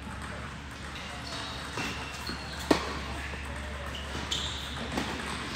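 Tennis ball being struck and bouncing on an indoor hard court, with a sharp crack a little under three seconds in and short high sneaker squeaks.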